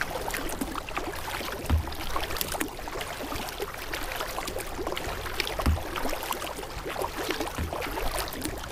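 Kayak paddle blades dipping and splashing in steady rhythm during a hard sprint, water spattering off the blades, with a soft low thump about every two seconds as the strokes pull.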